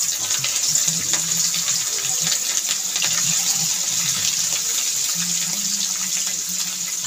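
Rohu fish pieces frying in hot oil in an iron kadai: a steady sizzle with scattered crackles.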